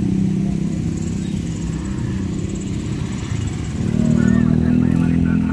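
Motorcycle engines running at low revs as they ride over the railway crossing, growing louder about four seconds in as one passes close by.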